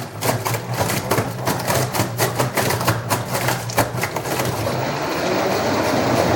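LG washing machine drum speeding up into a spin with an unbalanced load: rapid, irregular knocking and rattling that gives way, about four to five seconds in, to a steady whir that grows louder as the drum picks up speed.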